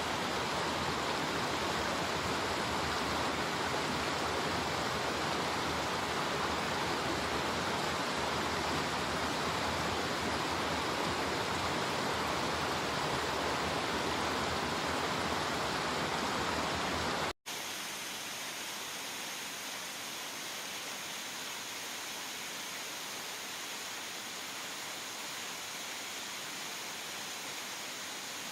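Mountain stream water rushing steadily. About 17 seconds in, it cuts to a quieter, thinner rush of water.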